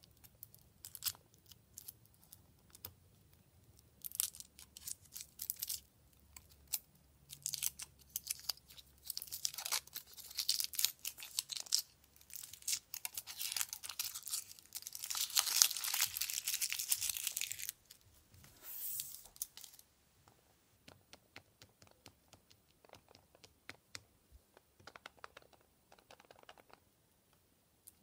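Foil wrapper of a Kinder Surprise chocolate egg being peeled and crinkled off by fingers: scattered crackles at first, then dense continuous crinkling and tearing, loudest a little past the middle. The last third holds only faint, sparse ticks.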